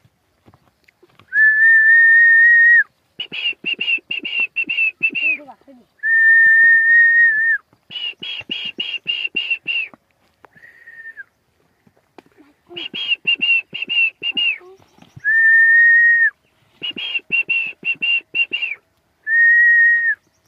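A person whistling in a repeating pattern: a long, steady note, then a run of quick, higher, clipped whistles at about four a second. The pattern comes four times over.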